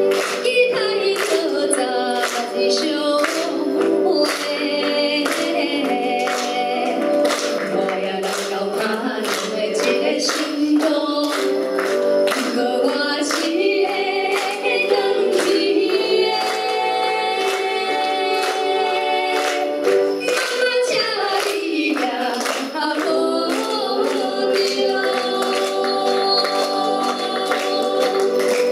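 Two women singing a Taiwanese Hokkien song as a duet into microphones, over instrumental accompaniment with a steady beat.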